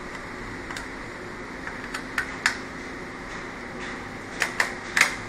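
Sharp little clicks and taps of a screwdriver working screws out of an HP G62 laptop's plastic base and of an access cover being pried off, three louder clicks close together near the end, over a steady background hum.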